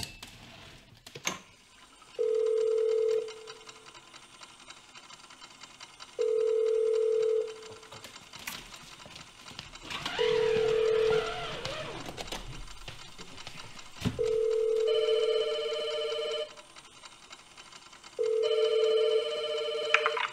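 Telephone ringing tone: a steady low beep about a second long, repeated about every four seconds, five times. The last two beeps are longer and are joined by a higher, buzzing ring.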